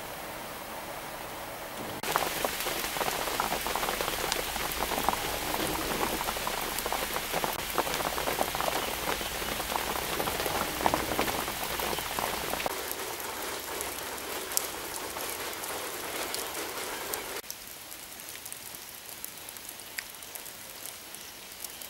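Heavy rain falling on open floodwater, a dense patter of drops striking the water surface. It gets louder about two seconds in and eases in two steps later on.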